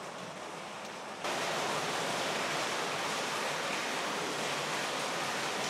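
Water pouring and dripping into a rock-cut canal tunnel: a steady, even rush of water noise. It starts abruptly about a second in, louder than the quieter steady hiss before it.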